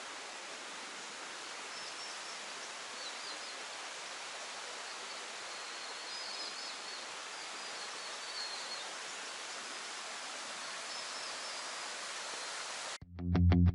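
Steady rushing outdoor ambience with faint, high bird chirps scattered through it. Near the end it cuts off abruptly and distorted electric guitar music starts.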